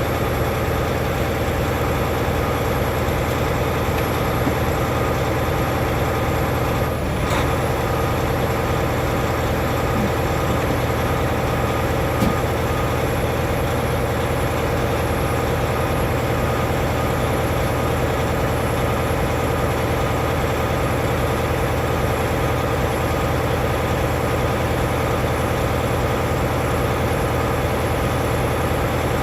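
Semi-truck diesel engine idling steadily, with one brief click about seven seconds in.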